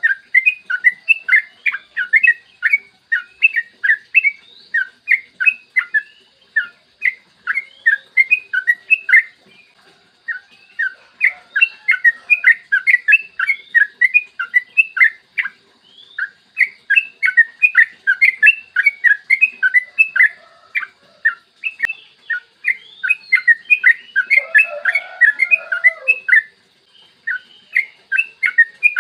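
Yellow-vented bulbul (trucukan) singing long runs of rapid, bubbly chattering notes. The runs last several seconds each and are broken by brief pauses, and a lower call comes in near the end.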